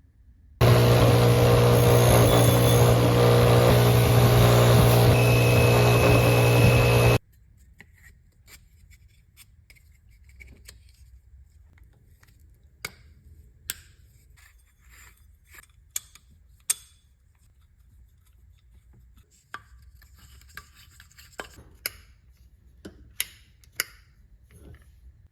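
A powered shop tool's electric motor runs loud and steady for about six and a half seconds, then cuts off abruptly. Scattered clicks, taps and short scrapes of metal parts being handled follow.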